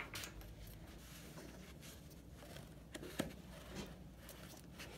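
Nylon webbing cam strap being worked through its metal cam buckle and pulled snug around aluminium rod tubes and frame: faint rustling of webbing and handling, with two sharp clicks about three seconds in.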